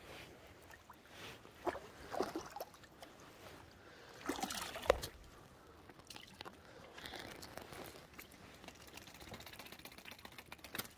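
Faint close handling noises: scattered small clicks, rustles and squishing sounds, with a busier patch of rustling about four seconds in that ends in a sharp click.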